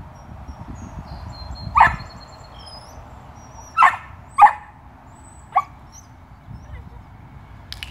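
Belgian Malinois puppy barking up at its handler: four short, sharp barks, two of them close together in the middle.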